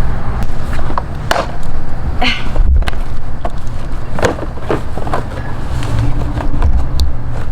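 Plastic inner fender liner of a Jeep JL being pulled out of the wheel well: scattered sharp plastic knocks and clicks over a heavy low rumble.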